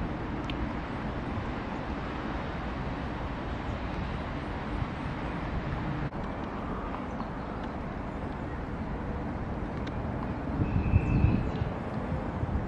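Wind buffeting the microphone over a steady low rumble, with a stronger gust about ten and a half seconds in.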